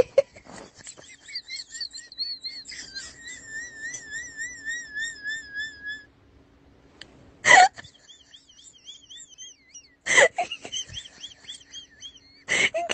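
Loud sharp cracks of tlacololero dance whips, three of them about two and a half seconds apart in the second half. Before and between the cracks, a high warbling whistle-like tone.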